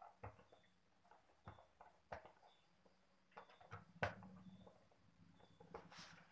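Faint, irregular clicks, taps and scrapes of hands opening the cardboard lid of a cake box, with the sharpest tap about four seconds in.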